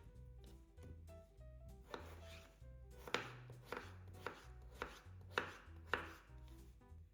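A knife cutting vegetables on a cutting board, with about seven sharp chops spaced roughly half a second apart, each trailed by a short slicing hiss. Soft background music plays underneath.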